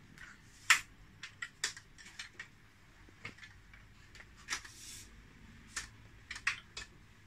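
Digitek DTR 550 LT camera tripod being unlocked and extended section by section: a string of sharp, irregular clicks and knocks from its leg locks and sliding sections, the loudest about a second in.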